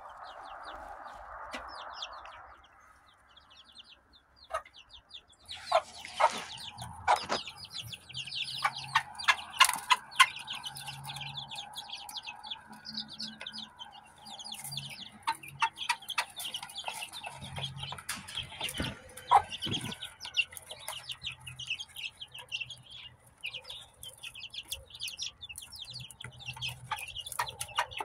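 A brood of young ISA Brown and white layer chicks peeping constantly in short, high, falling chirps, much busier after about five seconds, with low clucking from an adult hen and scattered sharp taps. A brief rushing noise comes in the first couple of seconds.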